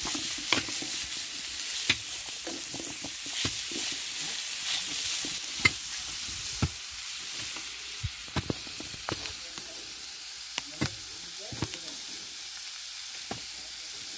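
Chopped cabbage with tomato, onion, garlic and bell pepper sizzling in oil in a frying pan during a quick sauté, stirred, with short scrapes and knocks of the utensil against the pan. The sizzle grows slowly quieter.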